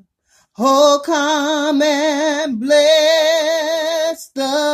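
A woman singing a slow hymn solo and unaccompanied, holding long notes with a wide vibrato. One long held note breaks off a little past four seconds in, and a new phrase begins right after.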